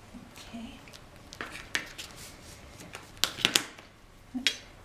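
Hands handling cardstock and craft tools on a cutting mat: light rustles and a few sharp taps, with a quick cluster of louder clicks a little over three seconds in as a plastic glue bottle is picked up.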